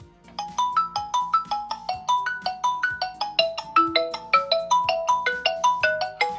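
Smartphone ringtone: a marimba-like melody of quick struck notes, about four or five a second, that starts a moment in and keeps going.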